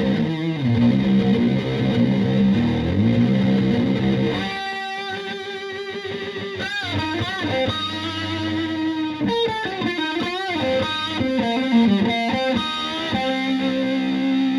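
Fuzzed electric guitar through a 1974 V2 Ram's Head Big Muff: a Stratocaster's single-coil pickups, tuned to Drop C, into a Fender Twin–style valve combo at the edge of breakup. Heavy low chords, then about four and a half seconds in a higher lead line with string bends and wide vibrato, ending on a held low chord.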